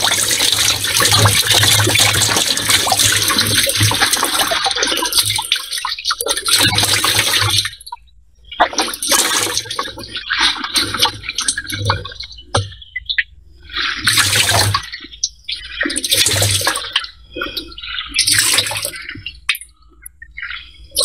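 Liquid pouring out of the cells of a 12-volt lead-acid car battery into a plastic bin, splashing in a steady stream for about eight seconds, then in separate gushes every second or two as the battery is tipped. It is the battery's dirty fluid being drained, carrying black sediment out of the cells.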